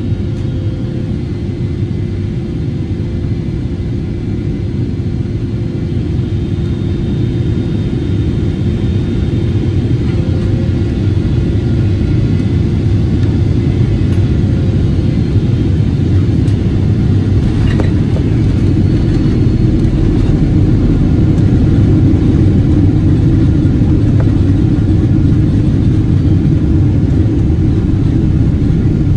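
Airliner cabin noise during landing: a steady low rumble of jet engines and airflow, with a faint steady whine above it. It grows louder in the second half as the plane comes down onto the runway and rolls out, and a single brief knock is heard a little past the middle.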